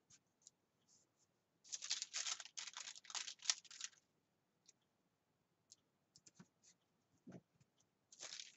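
Paper sticker sheets rustling and crinkling as stickers are handled and peeled from a sticker book, in a burst of about two seconds. A few light clicks and taps follow, and another rustle starts near the end.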